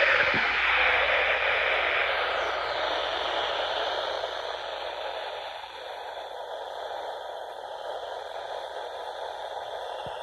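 Radio static: a steady hiss from a radio receiver with no programme on it, loudest at first and slowly fading over the seconds.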